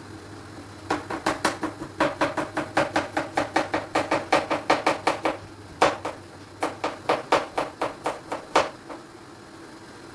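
Knife chopping vegetables on a cutting board: a fast run of about six cuts a second, then after a short pause a few slower, spaced cuts, over a low steady hum.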